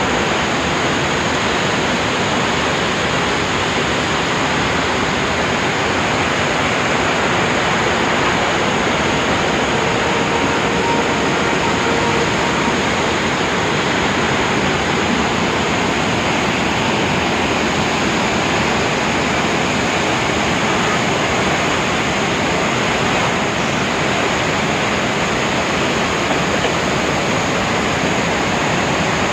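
A large waterfall in full flow: a loud, unbroken rush of falling water.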